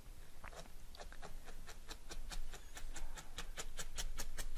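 Needle felting wool roving on a foam mat: a run of quick, dry taps, sparse at first and then about four a second.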